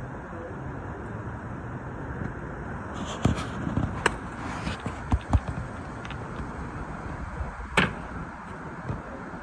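Cornhole bean bags landing on a board and on the court, about five short knocks, the loudest close to the end, over a steady low background noise.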